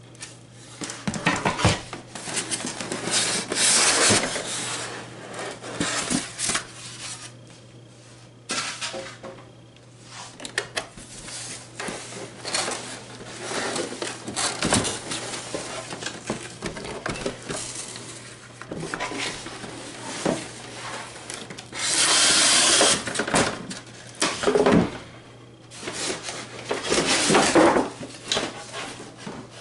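Cardboard shipping box and packing being handled: irregular rustling, scraping and knocks as a blender is worked out of the box, with a longer loud scrape about two-thirds of the way through.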